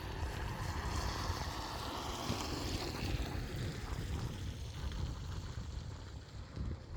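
Antonov cargo aircraft's engines as it passes on its arrival approach, a broad noise that swells about one to three seconds in and slides down in pitch, with wind rumbling on the microphone.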